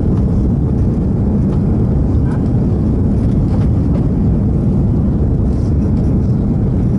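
Steady low roar of cabin noise inside an Airbus A340-600 in its climb after takeoff: the four Rolls-Royce Trent 500 engines and rushing airflow heard through the fuselage, even and unbroken.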